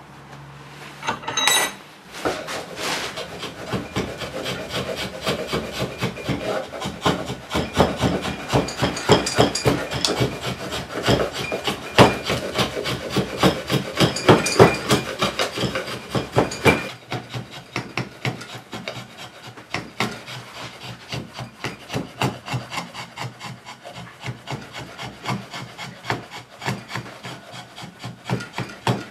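Cherrywood hammer handle being shaped by hand with bladed tools and a file: fast, rhythmic scraping strokes on the wood, heavier through the first part and lighter from a little past halfway. A short metallic clink about a second and a half in.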